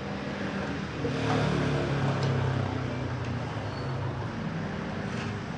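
A motor vehicle's engine hum that swells about a second in and eases off a few seconds later, with a few faint clicks.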